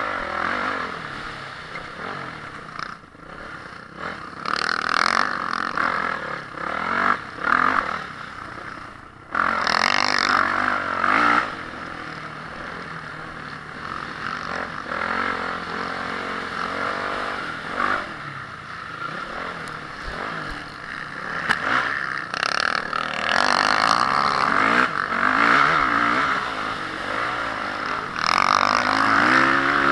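Honda CRF450R motocross bike's single-cylinder four-stroke engine under race riding, the throttle opened hard in repeated bursts and rolled off in between, rising and falling in pitch. The loudest pulls come about ten seconds in and again through the last seven seconds.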